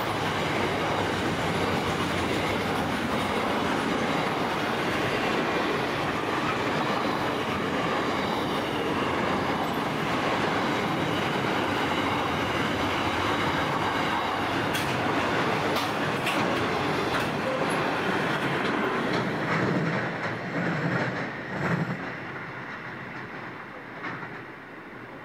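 Loaded container wagons of a long freight train rolling past close by: steady wheel-on-rail noise, with a few louder knocks as the last wagons go by about 20 seconds in, then the sound dies away quickly as the tail of the train recedes.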